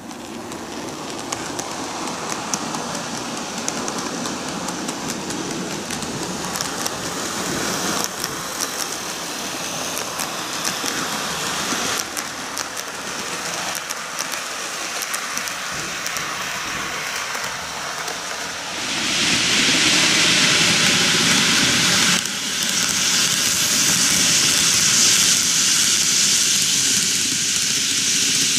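N-gauge model trains, a Kintetsu 23000 Ise-Shima Liner and an 80000 Hinotori, running on model track: a steady whirr and rumble of motors and wheels with many small clicks. It gets clearly louder about two-thirds of the way through as a train runs close past.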